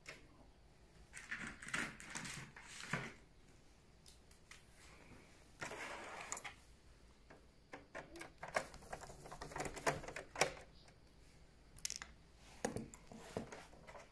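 Scattered clicks, taps and short rattles of hands and a screwdriver working on a PlayStation 4 Pro's plastic casing and screws, with a brief scrape about six seconds in.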